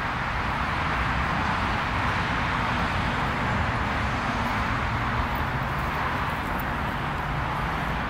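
Steady outdoor background noise at night: an even hiss with a low, uneven rumble underneath and no distinct events.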